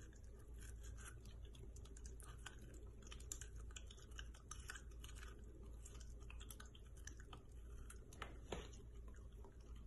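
Small dog biting kernels off a corn cob: faint, crisp crunching clicks, with a couple of louder crunches about eight seconds in.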